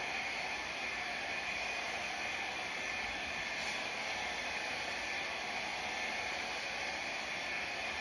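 Handheld hair dryer running steadily, blowing air over wet acrylic pour paint on a canvas to push the paint across it.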